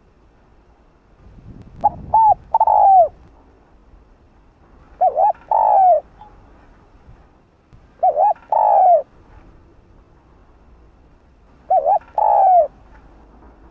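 Spotted dove cooing: four calls about three seconds apart, each two short notes followed by a longer note that falls in pitch. A brief low rumble sits under the first call.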